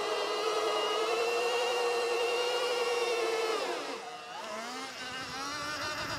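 Sur-Ron Ultra Bee electric dirt bike's motor whining at a steady pitch while the rear tyre spins in a burnout against the held front brake. Near the middle the whine drops away, then rises again at a lower pitch.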